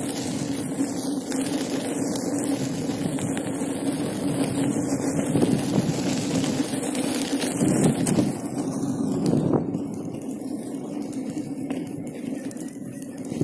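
Inmotion V5F electric unicycle rolling over a dirt path: tyre crunching and rumbling on the ground with a steady low hum, and a couple of louder bumps past the middle. The sound grows quieter and duller over the last few seconds.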